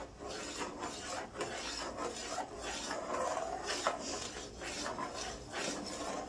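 A steel spoon stirring upma batter in an aluminium pot, scraping across the pot's bottom and sides in repeated strokes, about one to two a second.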